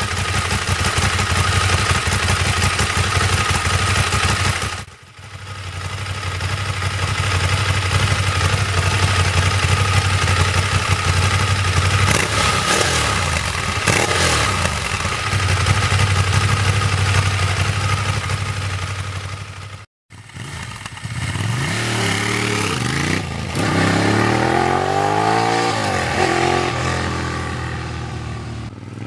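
Ducati sportbike's V-twin engine running through its twin underseat exhaust, idling steadily and revved in blips. About twenty seconds in, after a break, it is heard accelerating hard, its pitch climbing and dropping again with each gear change.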